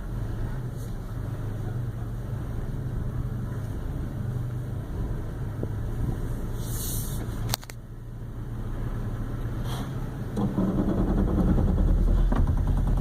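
2016 Toyota Tacoma's drivetrain heard from inside the cab as the truck crawls down a steep grade under crawl control, with no pedal input. A single sharp click comes about seven and a half seconds in, and the rumble grows louder about ten seconds in.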